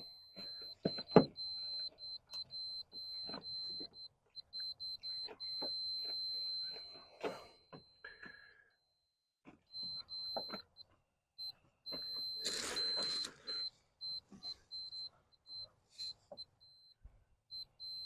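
Multimeter continuity beeper sounding a high, steady beep that stutters on and off in short and long stretches as the test leads make and lose contact on the door-wiring pins during a continuity check. Clicks and knocks of probe and connector handling, with a brief rustle of wiring about twelve seconds in.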